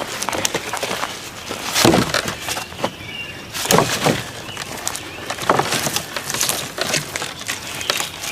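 Sticks and branches being stacked and packed down: a few wooden knocks about two seconds apart, with twigs crackling and rustling between.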